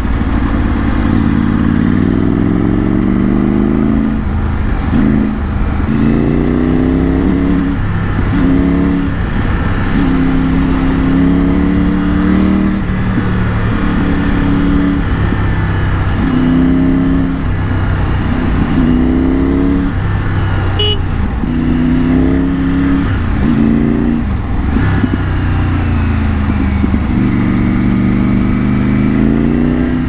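Triumph Tiger 900's three-cylinder engine breathing through a Scorpion aftermarket exhaust, heard from the rider's seat while riding. The engine note rises and falls again and again as the throttle is opened and rolled off.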